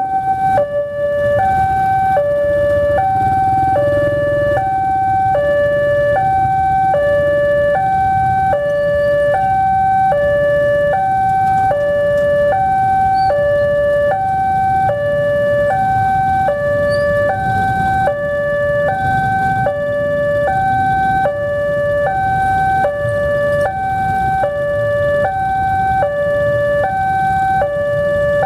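Railway level-crossing warning alarm sounding: an electronic two-tone signal alternating steadily between a lower and a higher note, each held about half a second. It warns that a train is approaching and the crossing is closed. Underneath is the low rumble of waiting motorcycle and car engines.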